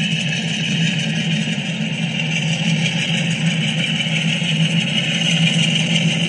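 A steady engine hum, as of an engine idling, holding level without change.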